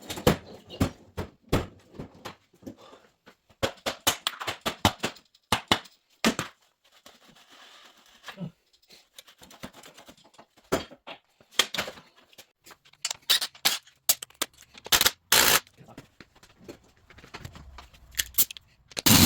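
Irregular sharp clicks and knocks of hand tools on metal motorcycle parts during disassembly, coming in bunches with short pauses between.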